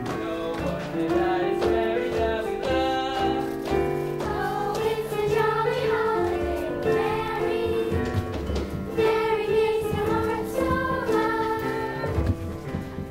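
A group of young voices singing a show tune together over instrumental accompaniment with a steady beat.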